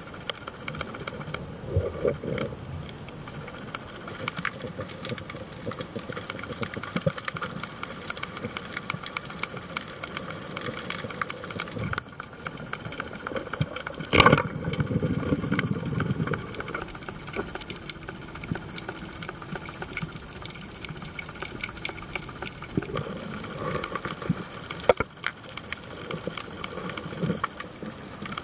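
Underwater reef ambience picked up by a submerged camera: a constant hiss packed with fine crackling ticks, typical of snapping shrimp. About midway a single sharp crack stands out, followed by a second or two of low churning water.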